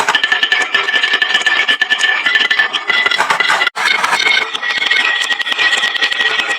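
Many marbles rolling and clattering down a wooden marble-run slope, a dense run of clicks and rattles over a steady rolling hum. The sound drops out for an instant about halfway through.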